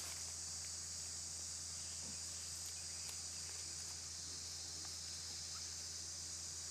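Steady, high-pitched insect chorus, a continuous even buzz, with a few faint rustles.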